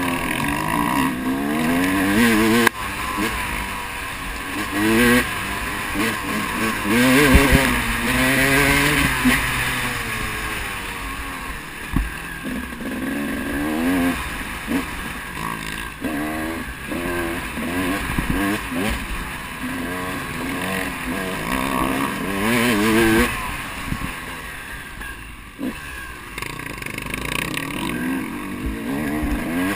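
KTM enduro motorcycle engine heard from the rider's helmet camera, revving up and dropping back over and over with throttle and gear changes, over a steady rush of wind.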